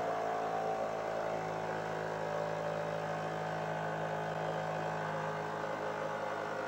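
Stirling engine driving a GDS-150 generator, running steadily with its cooling fan: an even mechanical hum.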